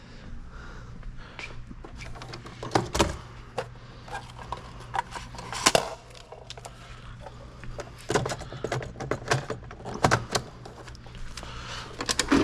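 Scattered clicks, knocks and rattles of keys and stock being handled while a vending machine is restocked, over a steady low hum.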